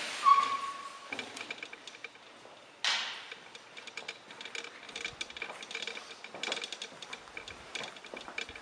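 A wooden balcony door being opened: a short squeak near the start and a knock about three seconds in, followed by faint scattered clicks and ticks.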